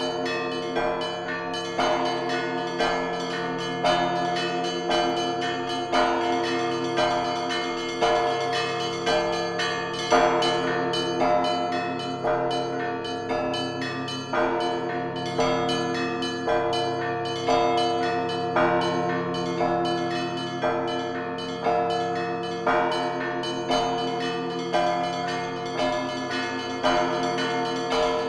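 Church bells ringing a continuous peal, with fresh strikes about once a second over the sustained hum of the lower bells.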